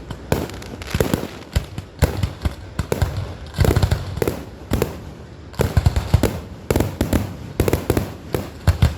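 Fireworks going off in a rapid, irregular string of sharp bangs and crackles, with heavier clusters of booms at several points.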